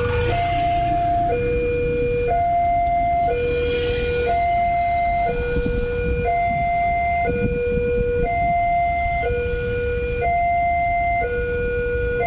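Railway level-crossing warning alarm sounding an electronic two-tone signal, a lower and a higher tone taking turns about once a second, warning of an approaching train. Road traffic rumbles underneath, with motorcycles idling and passing.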